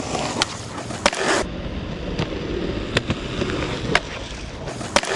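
Skateboard wheels rolling on pavement, broken by about five sharp clacks of the board as it is popped and lands, one of them about four seconds in.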